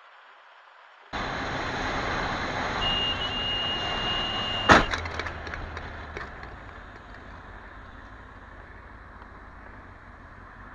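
Motorcycle riding noise, wind and engine, heard from a helmet camera, starting suddenly about a second in, with a thin steady high tone for about two seconds. Then one loud sharp bang with a brief rattle, after which the riding noise fades steadily as the bike slows.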